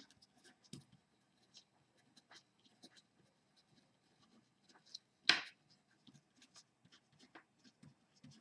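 Pen writing on paper: faint, short scratching strokes one after another, with one louder brief noise about five seconds in.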